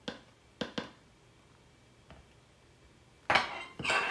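A spoon clicking lightly against a plastic powder tub a few times, then near the end a louder clatter of kitchen utensils being handled on the countertop.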